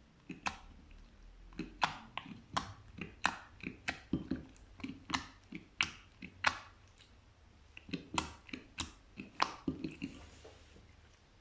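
Slime being worked, giving a run of sharp wet pops and clicks, roughly two a second, that die away near the end.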